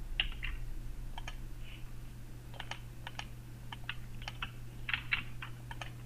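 Computer keyboard keys being typed: irregular, short clicks, some in quick little clusters, with a steady low electrical hum underneath.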